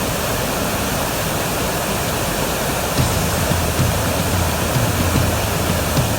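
Waterfall: a steady, dense rush of falling water, with a deeper low rumble growing stronger about three seconds in.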